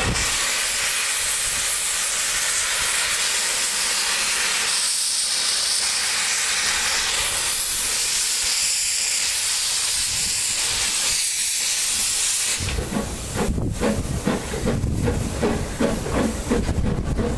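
Narrow-gauge steam tank locomotive hissing steam loudly and steadily at the start of a departure. About twelve seconds in the hiss cuts off and gives way to a rapid uneven beat as the train gets under way.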